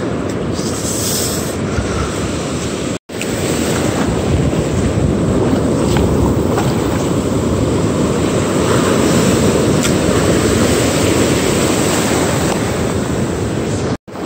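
Ocean surf washing up the beach and foaming through the shallows, a steady rushing noise with wind on the microphone. The sound drops out for an instant about three seconds in.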